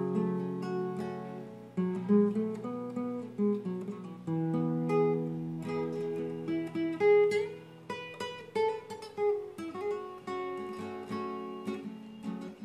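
Solo nylon-string classical guitar played fingerstyle: plucked melody notes and chords ringing over held bass notes, the instrumental introduction to a song.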